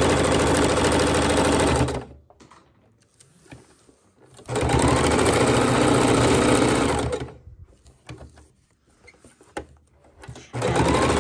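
Electric sewing machine stitching a hook-and-loop strip onto fabric in three runs of two to three seconds each. It stops about 2 s in, starts again after a pause, stops again, and starts once more near the end, with faint handling ticks in the pauses.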